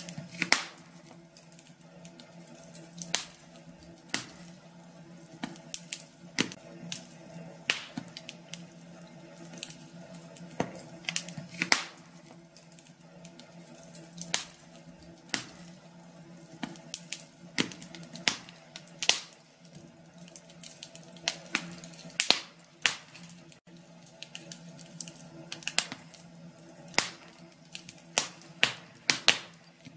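Wood fire crackling in a fireplace: sharp irregular pops and snaps, one or two a second, over a low steady hiss.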